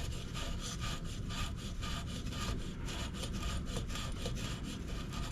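Freshly soldered pipe joint being rubbed and scrubbed to clean and shine it, in quick back-and-forth strokes, several a second.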